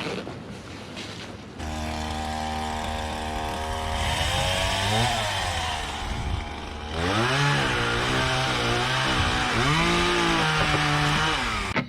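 Two-stroke chainsaw engine running: it comes in about a second and a half in, runs steadily, then is revved up and down several times before cutting off near the end.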